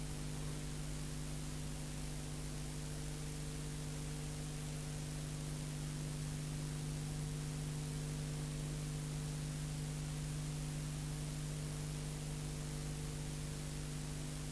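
No programme sound, only a steady low electrical hum with an even hiss over it, unchanged throughout: the background noise of an old off-air television recording.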